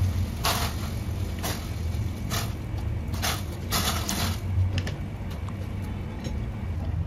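A pot of salted water at a boil with a steady low rumble. Over it come several short splashes, about one a second and a longer one around four seconds in, as crinkle-cut potato pieces are dropped into the water to parboil.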